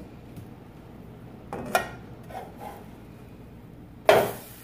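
Metal spatula knocking and scraping against a nonstick frying pan while a pancake is turned: a sharp click about two seconds in, then a louder scrape near the end as the spatula slides under the pancake.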